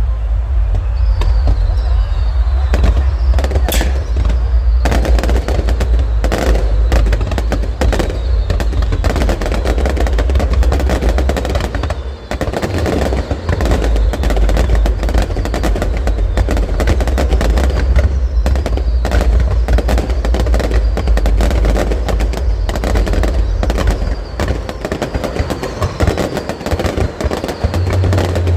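Fireworks display: a dense run of rapid bangs and crackles over a continuous low rumble, with a short lull about twelve seconds in.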